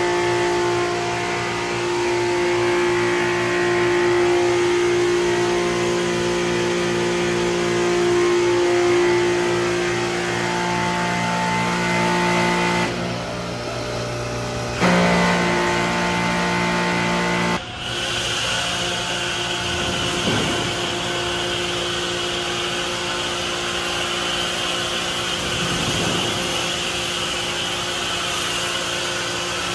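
A machine runs with a steady hum that shifts briefly now and then. From a little past halfway, a steady hiss of thick foam spraying from a trigger gun and wand joins the hum.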